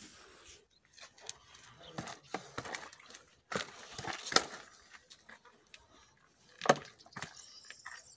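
Hand tools knocking and scraping on a wall being plastered: irregular taps and scrapes, with a sharp knock about halfway through and a louder one near the end.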